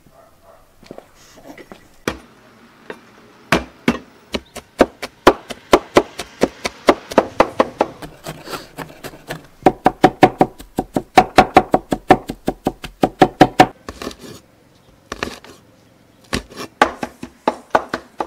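A Chinese cleaver chops rapidly on a wooden cutting board, mincing garlic and then cutting small red chillies. The strikes come in a fast, even run of about four to five a second, break off briefly near the middle, and then resume in shorter bursts.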